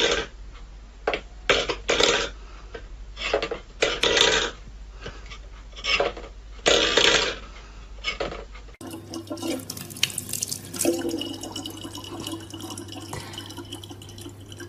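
Stainless steel pet bowl pawed and pushed across a wooden floor by a cat, scraping and clattering in short irregular bursts. About nine seconds in it gives way to a tap running in a steady stream into a plastic bottle.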